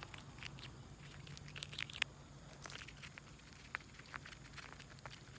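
Faint scattered taps and scuffs of a small dog moving about, with a few sharper clicks among them.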